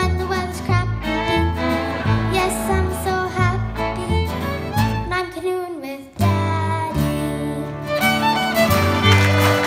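Live acoustic string band playing an instrumental passage: fiddle leading over strummed acoustic guitar and upright bass keeping a steady beat. The music stops for a moment about six seconds in and then starts again.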